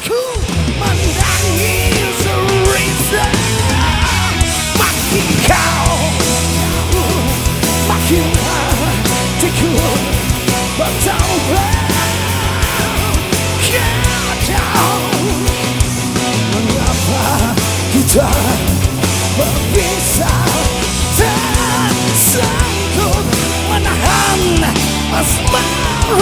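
Rock band playing live at full volume: drums, bass and guitars, with a lead line bending in pitch.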